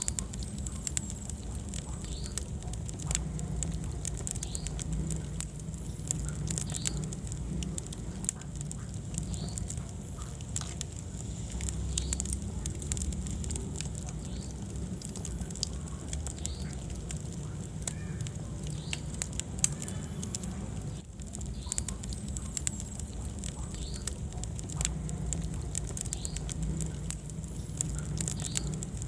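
Wood fire burning in a fireplace, crackling and popping irregularly and often over a steady low rumble of the flames.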